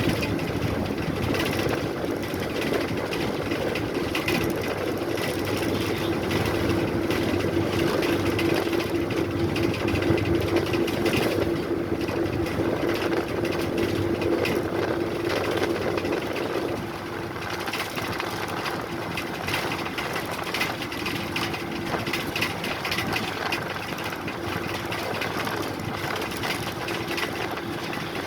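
Tamil Nadu government bus running, heard from on board: a steady engine drone and whine over constant light rattling of the bodywork. The whole sound drops a little about 17 seconds in.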